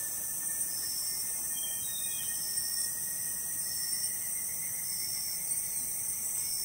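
Steady high-pitched chorus of forest insects, with a shorter call repeating about once a second.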